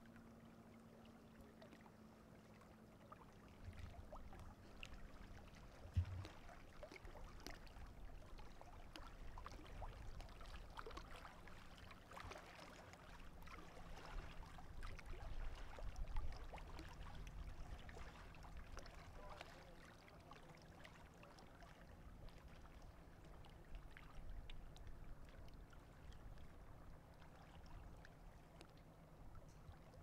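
Faint lapping of small waves, light splashes and trickles over a low rumble, with one thump about six seconds in.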